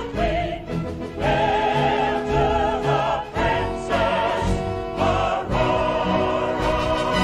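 Choir singing a stately anthem with full orchestra, the voices wavering with vibrato; about five and a half seconds in the music settles onto a long held chord.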